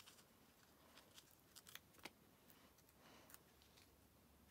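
Near silence with a few faint clicks and rustles: adhesive foam dimensional strips being peeled and handled on a paper-covered table.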